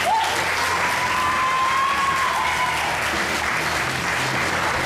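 Audience applauding steadily, with one long held high note, a cheer or whistle from someone in the crowd, rising slightly over the first half.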